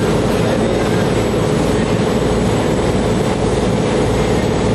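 Catamaran fishing boat under way: the steady drone of its engines under a constant rush of wind and water.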